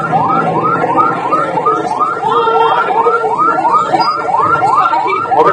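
Ambulance siren on a fast yelp: a rising wail repeating about four times a second.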